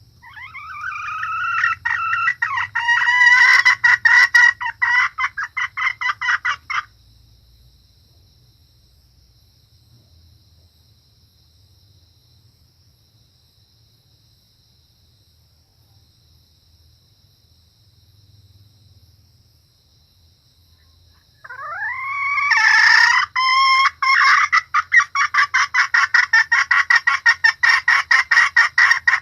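Female junglefowl cackling in two bouts. Each opens with a rising note and runs into a fast string of clucks, about six a second. The first bout stops about a quarter of the way in; the second starts about two-thirds through and runs on.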